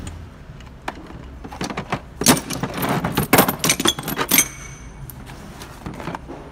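Metal pullers and tools clinking and clattering in a steel toolbox drawer as they are shifted about by hand. It comes as a run of clicks and knocks that is busiest in the middle and quieter near the end.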